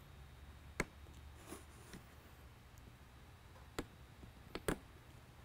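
Power clips being fastened to the terminal posts of a PAR-36 LED spotlight: about six small sharp clicks, the loudest about a second in and two close together near the end, over a faint steady low hum.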